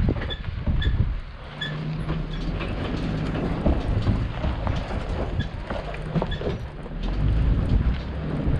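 Off-road 4x4 truck driving slowly over a rough trail: the engine runs low and steady under a clatter of knocks and rattles from the body and suspension, with a few short squeaks.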